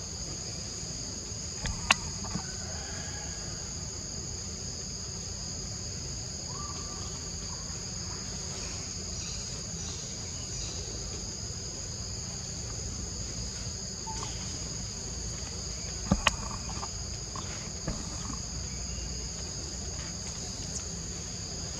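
Steady high-pitched insect chorus, an unbroken drone in two high bands, with a few sharp clicks: one about two seconds in and a quick pair near the end of the middle.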